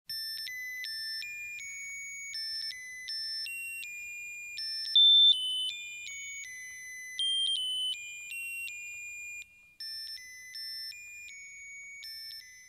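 A tinny electronic melody in single high beeping notes, with no bass beneath it, opening a Thai pop song. The notes step up and down, and a few of them near the middle are much louder.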